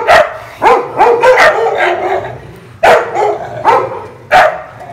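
Several street dogs barking in a tense standoff: about six sharp, loud barks in quick succession, with a short lull about two seconds in.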